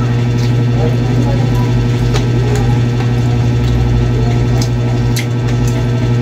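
A small motor or engine running with a steady low hum, with a few faint clicks.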